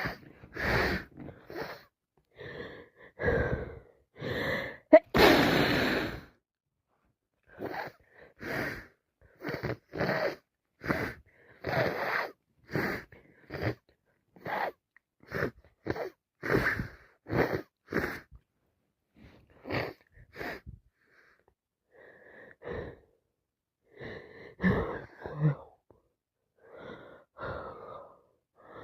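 A woman with a cold in a sneezing fit: gasping breaths, then one loud, long sneeze about five seconds in, followed by a long run of short, quick sneezing bursts about one a second and wheezy breaths near the end.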